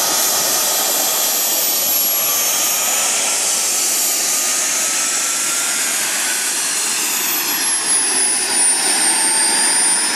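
Small gas-turbine engines of radio-controlled Tornado model jets running on the ground: a steady rush with a thin high whine. The whine's pitch sags about seven seconds in, then edges back up near the end.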